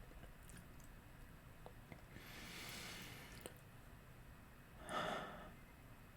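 Quiet room tone with a man's breathing: a soft breath about two seconds in and a louder, short breath near five seconds in.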